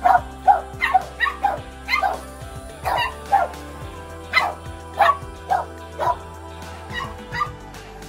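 A dog barking repeatedly and excitedly in short sharp barks, roughly two a second, getting a little quieter near the end, over background music.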